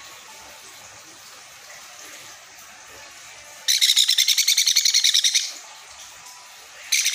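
Baby sun conure chick giving its rapid, pulsing food-begging call while being syringe-fed formula. There are two loud bouts: one of nearly two seconds about halfway through, and another starting near the end.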